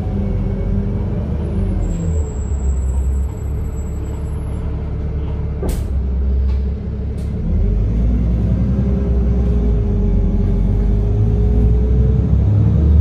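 NefAZ 5299 city bus driving, heard from inside the passenger cabin: a steady low engine and road rumble, with one sharp knock about six seconds in and a steady whine through the second half, getting a little louder near the end.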